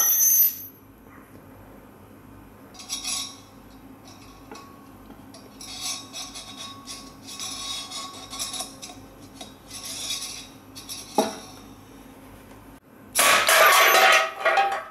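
Homemade LPG gas rifle firing: a short loud rush of released gas at the start as the projectile strikes the can, and near the end a second, longer rush lasting about a second and a half as another shot knocks the can down. In between, light metallic clinks and rustling of handling, with one sharp knock.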